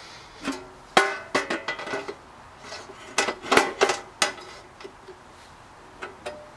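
Clanks and rattles of a Weber Go Anywhere portable charcoal grill's steel body as its lid is unlatched and lifted open: a series of sharp metallic knocks, each briefly ringing, the loudest about a second in and several more in quick succession a little before the middle.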